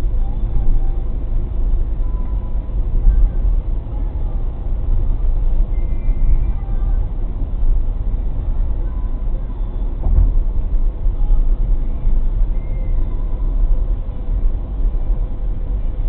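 Road noise inside a car cruising at highway speed: a steady low rumble of tyres and engine, with a brief thump about ten seconds in.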